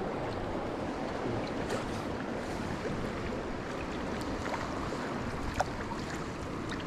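Steady rush of wind and lapping water around a canoe being paddled, with a few faint paddle splashes.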